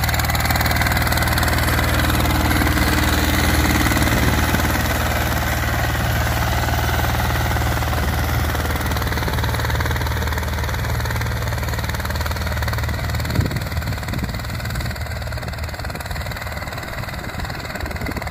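Steeltrac 18 hp mini tractor's diesel engine running steadily under load while pulling a tine cultivator through the soil. It fades somewhat in the last few seconds as the tractor moves away, with one sharp knock a little past two-thirds of the way through.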